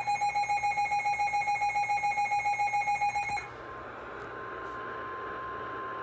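Midland NOAA weather alert radio sounding its rapid pulsing alarm beep, about seven beeps a second, for a severe thunderstorm warning. About three and a half seconds in the beeping stops and the radio's speaker opens on static hiss, with a faint steady tone: the broadcast's weather-radio warning alarm tone.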